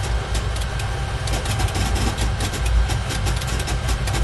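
Simulated jet engine and airframe noise in a Caravelle III cockpit simulator during a takeoff climb at takeoff thrust: a steady low rumble, with quick irregular ticks over it from about a second in.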